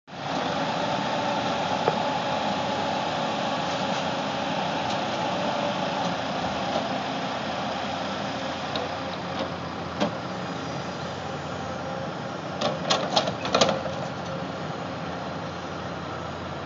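Tracked log loader's diesel engine running steadily under hydraulic load as the boom and grapple work, with a whine over it that fades in the first several seconds. A single sharp knock comes about ten seconds in, then a quick cluster of sharp knocks and clanks a few seconds later.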